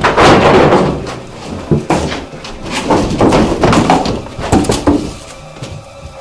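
Knocks and thuds of someone climbing a wooden ladder up through a floor hatch and moving across wooden floorboards, loudest in the first second, then several separate knocks, fading out about five seconds in.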